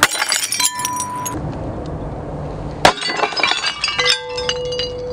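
A 6-lb sledgehammer smashes an orange ceramic mug, with a sharp crash and then the high clinking and tinkling of shards scattering and settling. A second crash comes about three seconds in, followed by more tinkling of ceramic pieces.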